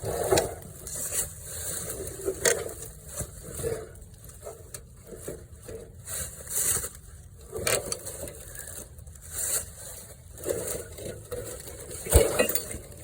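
Irregular metal clanks, knocks and scraping as the oil pan is worked loose from an upturned Wisconsin V4 engine, with one sharp, loud knock near the end.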